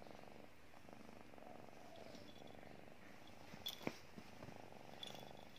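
Kitten purring softly and steadily, with two light clicks about two thirds of the way in.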